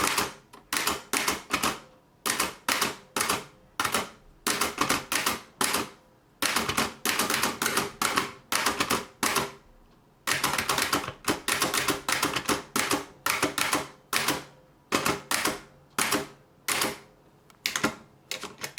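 Typing on an 1892 Empire No. 1 thrust-action typewriter, its typebars sliding forward through the key guide to strike the ribbon: quick runs of sharp clacking keystrokes with brief pauses between them.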